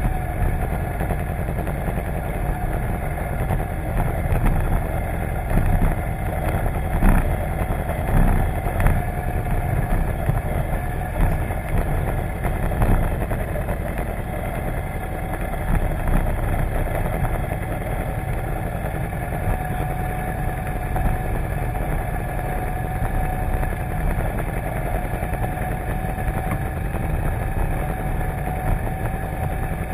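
Can-Am ATV's V-twin engine idling steadily close to the microphone, with a couple of brief knocks about a quarter of the way in.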